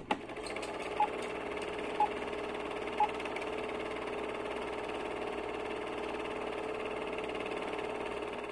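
Film projector sound effect: a steady whirring, fluttering rattle, with three short beeps one second apart in the first few seconds, like a film-leader countdown.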